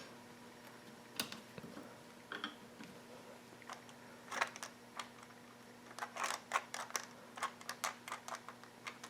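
Scattered light clicks and taps of small model-train parts being handled on the track, coming thicker in the second half, over a faint steady hum.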